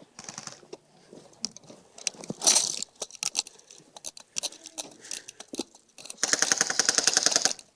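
Airsoft gun fire: scattered single shots and short strings of clicks, then a rapid full-auto burst lasting about a second and a half near the end.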